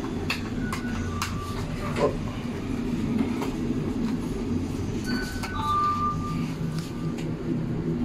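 Push buttons on a Hitachi lift car's operating panel being pressed again and again, giving about ten short clicks and a few brief beeps, over a steady low rumble.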